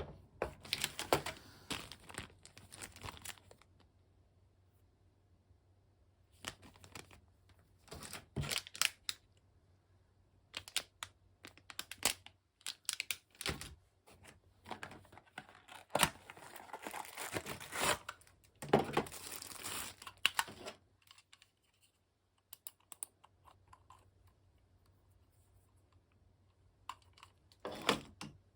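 Packaging being handled during an unboxing: irregular bouts of rustling, crinkling and tearing with scattered clicks, separated by short pauses.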